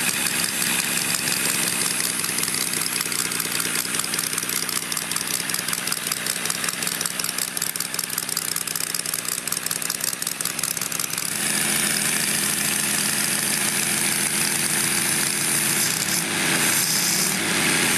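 Randall Cox's scale model air-cooled inline-six engine running steadily with a fast, even firing rhythm. About eleven seconds in, its sound gets a little louder and brighter.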